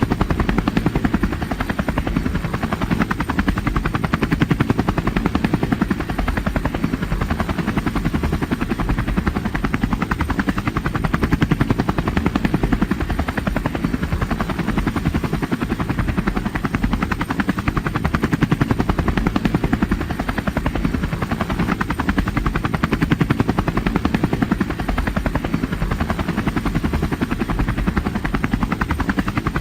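Helicopter in flight, its rotor blades beating in a fast, steady, even pulse over a continuous deep engine and turbine noise.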